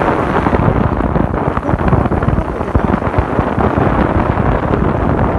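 Heavy wind buffeting the microphone of a camera moving along a road in an open vehicle, a dense steady rumble with the noise of travel underneath.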